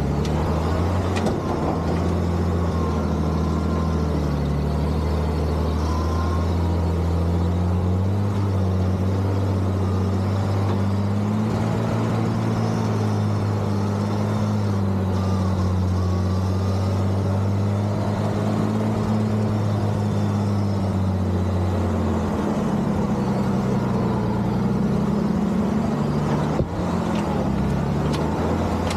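Engine of a vintage Dodge M37 military wrecker running steadily as the truck crawls at low speed, its pitch slowly rising and falling with the throttle and easing lower about three-quarters of the way through.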